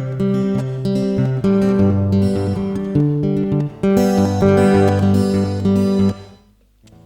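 Acoustic guitar playing an instrumental closing passage: rhythmic picked and strummed notes over a moving bass line. It stops about six seconds in and the last notes ring out briefly.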